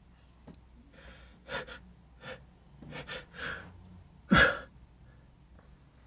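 A man's allergic sneeze: a run of short, catching gasps as the sneeze builds, then one loud sneeze about four seconds in. The sneeze was brought on by inhaled flower allergen and staring at the sun (a photic sneeze).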